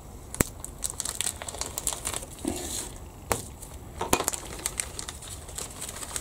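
Clear plastic parts bag crinkling and crackling as it is handled and opened, with sharp clicks throughout, the loudest about half a second in.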